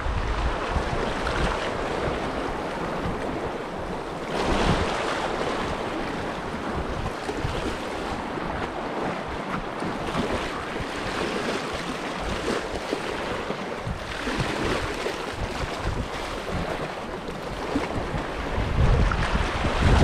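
Small sea waves washing and lapping against shoreline rocks, with wind buffeting the microphone, heaviest near the end.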